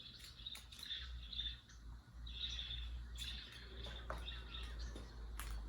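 Black-headed caique chirping in short high calls, with a few sharp clicks among them over a low steady hum.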